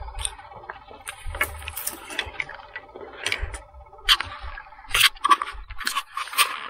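Irregular scrapes, clicks and rustles of a hooked spotted cod being handled on a rocky bank, laid on a measuring tape and held with a lip-grip tool, with louder noisy bursts in the second half. A faint steady whine underneath is a fault in the recording.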